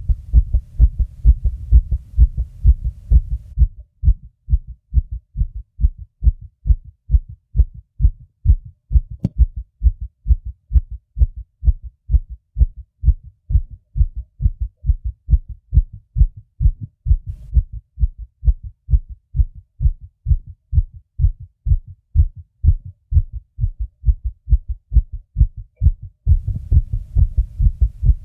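A person's fast heartbeat, heard as an even, continuous train of short low thuds. A low rumble fills the gaps between beats for the first few seconds and again near the end.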